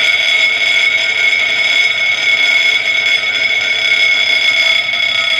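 Hurricane balls, a pair of joined steel balls, spinning fast on a rough surface and giving off a loud, steady, high-pitched whine.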